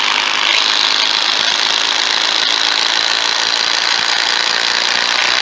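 Ryobi P235 18V 1/4-inch impact driver hammering steadily under heavy load as it drives an 8-inch Timberlok screw into a wooden telephone pole. The rattling stops suddenly at the end as the screw seats.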